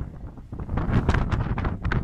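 Wind buffeting the microphone on a moving river ferry: a rough, gusty rumble that grows louder a little under a second in.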